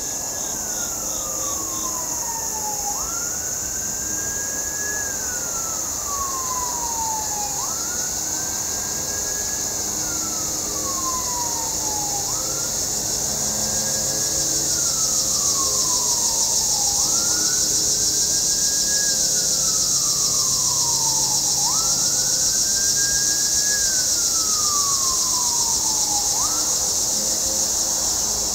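A distant siren wailing, its pitch rising quickly and falling slowly, about every four and a half seconds, six times over, above a steady high-pitched hiss.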